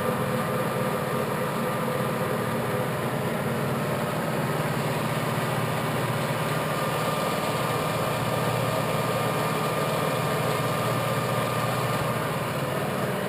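Clausing Colchester 16" geared-head lathe running steadily under power with its cross feed engaged, a constant gearbox hum with a steady whine.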